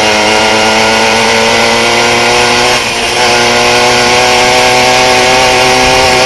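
Single-cylinder two-stroke engine of a 1979 Tomos Bullet A3 moped running loud and flat out at speed, its pitch climbing slowly, with a brief dip about three seconds in.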